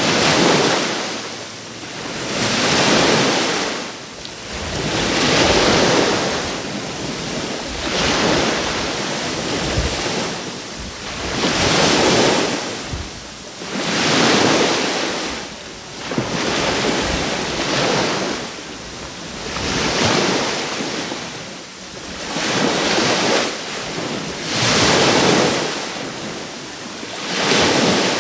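Small sea waves breaking and washing up the shore in a steady rhythm, one surge every two to three seconds.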